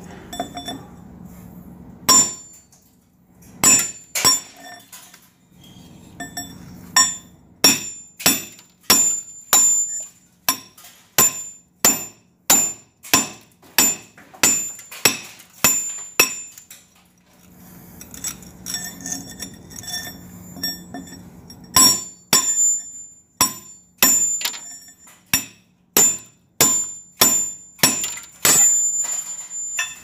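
Hand chiselling of a concrete wall: a steel chisel is hammered in sharp, ringing metallic strikes, about two a second, to break out the concrete between drilled holes. The strikes pause for several seconds past the middle, then resume.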